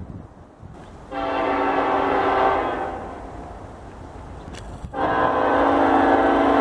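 Locomotive air horn sounding two long blasts, each a steady chord of several notes. The first starts about a second in and fades away; the second starts near the end and is still sounding. A low rumble runs underneath.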